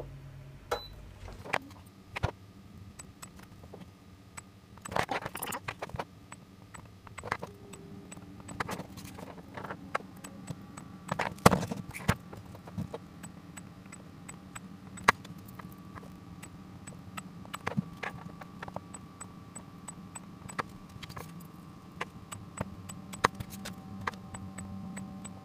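Battery spot welder's handheld copper probes snapping as they weld nickel-plated steel strip onto 21700 lithium-ion cells, a sharp click at each weld, irregularly spaced, the loudest about halfway through, over a low steady hum.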